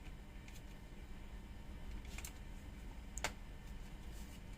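A few sharp, light clicks over a low steady hum, the loudest just after three seconds in: a cordless drill battery and its charger being handled.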